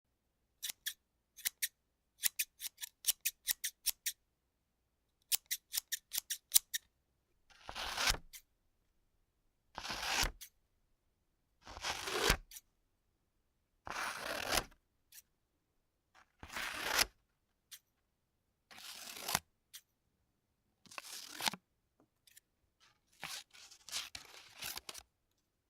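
Scissors snipped open and shut in air, a quick run of sharp metallic clicks for the first several seconds. Then they cut paper in about nine slower strokes, each a longer rasping snip, roughly one every two seconds, ending with a few shorter cuts.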